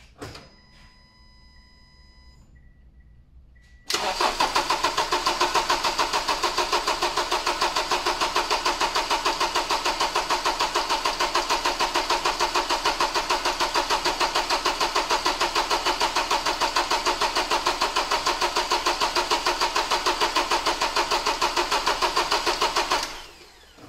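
A faint electronic beep tone for the first couple of seconds, then the starter motor cranking the engine over with the fuel injectors disconnected, so it turns with an even rhythm for about nineteen seconds without firing and stops abruptly. This is an extended-crank battery load test: the starter draws around 110 to 130 amps and the battery voltage stays just above 9.6 volts, a sign of a healthy battery.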